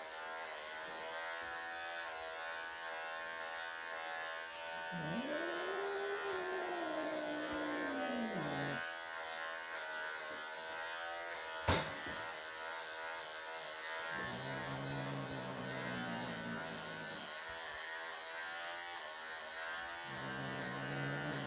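Wahl electric pet clippers buzzing steadily as they shave matted fur from a Persian cat's belly. About five seconds in, the cat lets out one long meow that rises and falls in pitch.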